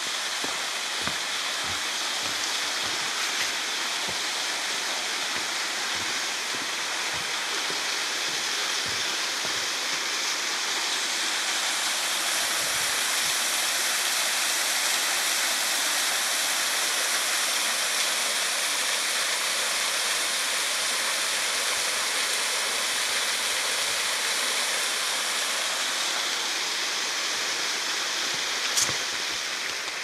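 Small waterfall spilling down a rock face: a steady rush of falling water that swells in the middle and eases near the end. Footsteps knock on a wooden footbridge during the first several seconds.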